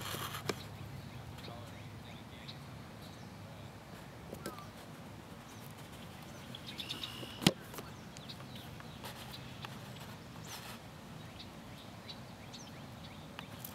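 Outdoor background noise with a steady low hum, a few faint high chirps, and a single sharp knock about seven and a half seconds in.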